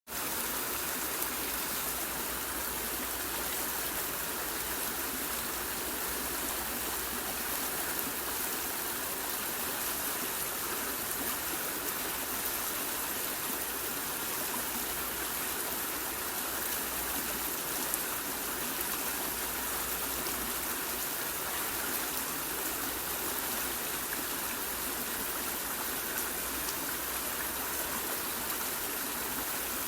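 Waterfall: a steady, unbroken rush of falling and splashing water, with no change in level.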